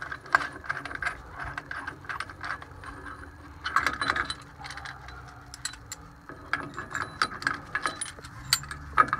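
Hand ratchet clicking in short runs as it turns the screw of a brake caliper piston compressor tool, pressing a twin-piston rear brake caliper's piston back into its bore to make room for new pads.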